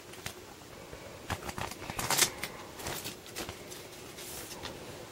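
Scattered rustles and light clicks of a pack of 5x7 photo paper being handled and opened.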